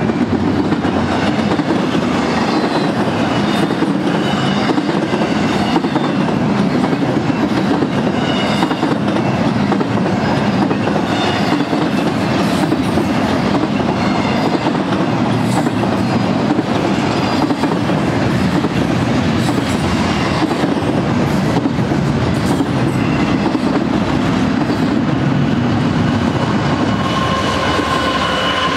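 Loaded double-stack container well cars of a freight train rolling past close by: a steady heavy rumble, with wheels clicking over the rail joints and short high wheel squeals. A steady high-pitched whine comes in near the end.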